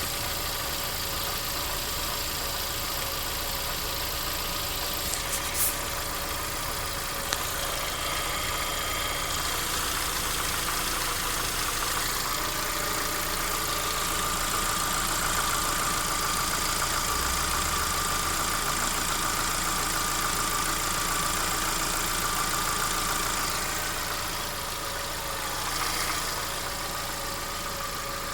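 Lada Vesta's 1.6-litre four-cylinder engine idling hot, with a knock that the owner suspects comes from the camshaft; the car has only about 4,000 km on it. The running is steady, a little louder through the middle.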